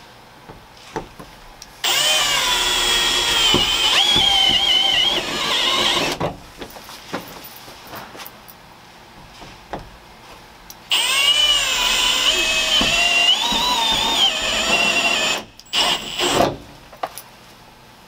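Cordless drill with a step bit cutting through a van's sheet-metal roof, enlarging a corner hole for a roof fan cutout. It runs in two bursts of about four seconds each, its whine wavering in pitch as the bit bites. A few short knocks follow near the end.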